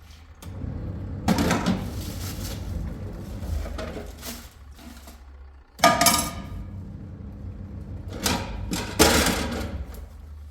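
Several knocks and clatters of objects being handled, the loudest about six seconds in and again near nine seconds, over a low steady hum.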